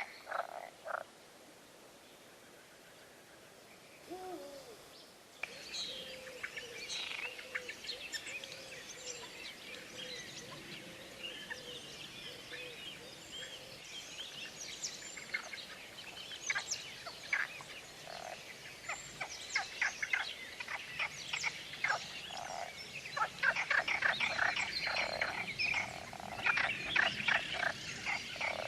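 Frogs croaking in a chorus, with many birds chirping and singing over them. The croaking breaks off about a second in and the sound stays quiet for a few seconds; then the bird calls start and the frog croaking thickens again over the last third.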